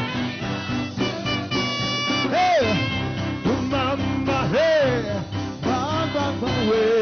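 Live gospel praise music: a singer's voice swoops up and down in pitch over a backing band, ending on a wavering held note.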